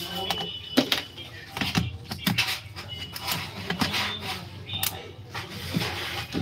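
Plastic clicks and knocks from a Dell 3542 laptop's bottom case being pressed and handled on a table: a string of irregular taps, the loudest about a second in.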